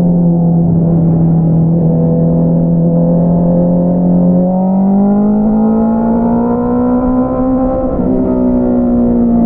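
2022 Honda CBR650R's inline-four engine through an Akrapovič single-outlet exhaust, running loud at a steady pitch, then rising gradually under acceleration for a few seconds, with a brief dip near the end before it holds steady again.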